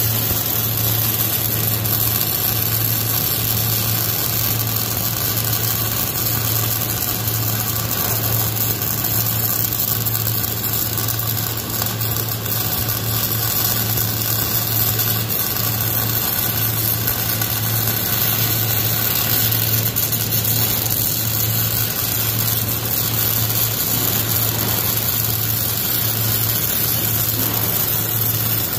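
Wire-feed (MIG) welding arc crackling and sizzling steadily through one long continuous weld on heavy steel, over a steady low hum.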